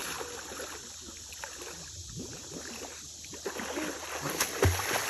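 Water splashing and sloshing around a small boat as a swimmer kicks and tows it, with scattered small splashes and one thump about four and a half seconds in.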